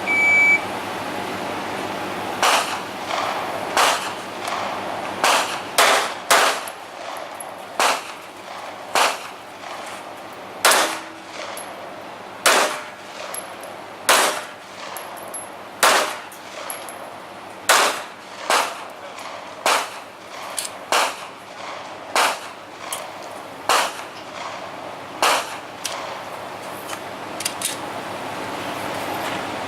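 A short beep, then a string of about two dozen gunshots fired at an uneven pace, roughly one a second, at steel targets on a shooting range.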